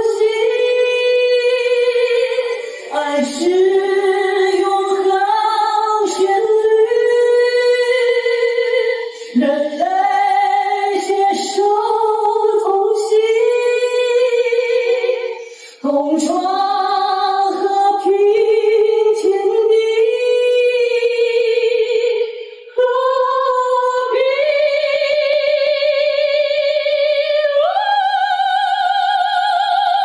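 A male singer with a high, clear voice sings unaccompanied into a handheld microphone, in long sustained phrases with short breaths between them. Near the end he rises to a high note and holds it.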